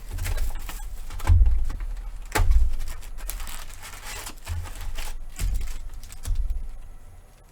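Hands handling trading card packs and cards on a table: irregular rustling, with dull knocks and thumps about one and a half, two and a half and five and a half seconds in.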